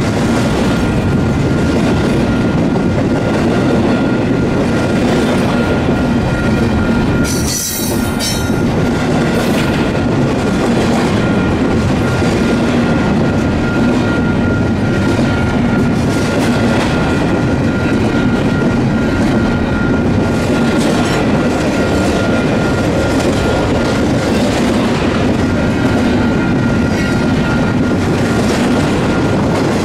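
Double-stack container train's well cars rolling past close by: a steady rumble and clatter of steel wheels on rail, with a thin steady whine underneath. A brief high wheel squeal about eight seconds in.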